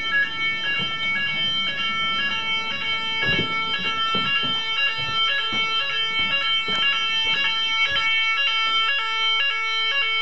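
Home-made fire alarm system in full alarm after its downstairs manual call point was triggered, with several sounders including a Roshni sounder going at once. It is a loud, fast, alternating multi-tone warble, and a second, steadier tone joins about two seconds in.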